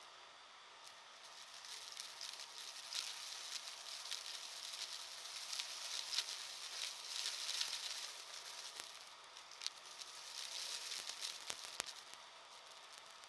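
Dry, crunchy debris crackling and ticking as an upright vacuum cleaner sucks it up off carpet, with the motor muffled. The dense crackle builds about two seconds in, carries a few sharper clicks near the end, and dies away just before the end.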